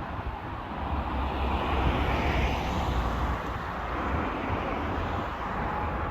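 A passing vehicle heard outdoors: a steady low rumble with a broad hiss that swells about two seconds in and then eases off.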